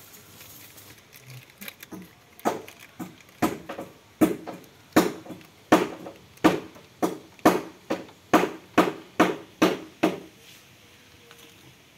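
About fifteen dull, sharp knocks on the Kubota DC68G harvester's side gearbox, quickening to about two a second, as the new oil seal is tapped into place around the shaft.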